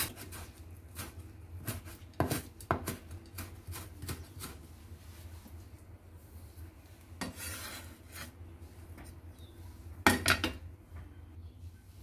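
Chinese cleaver knocking on a bamboo cutting board as green onions are cut, in scattered single chops with a quick flurry of chops about ten seconds in, the blade also scraping across the wood.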